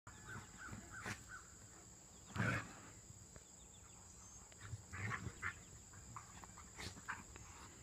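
A Rottweiler and a puppy play-fighting, giving short play growls and grunts in separate bursts, the loudest about two and a half seconds in.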